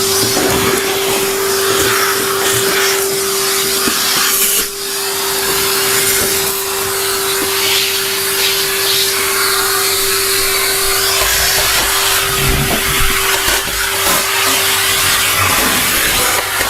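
Numatic Henry canister vacuum cleaner running and sucking up debris, its motor holding one steady whine over a loud rush of air, with scattered clicks and a brief dip in level about four and a half seconds in.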